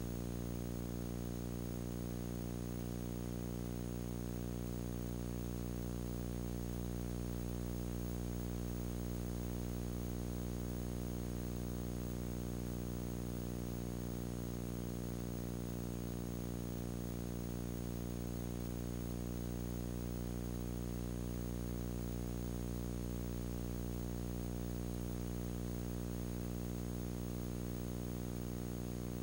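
Steady electrical hum and buzz with a faint high whine and hiss, unchanging throughout, with no sound of the activity on screen.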